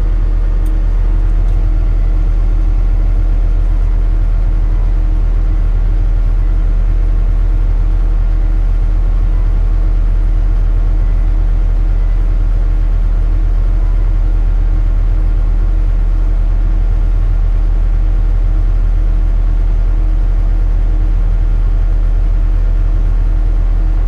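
Engine of the loader or skid steer that carries the hydraulic snowblower attachment, running steadily with a loud, even drone.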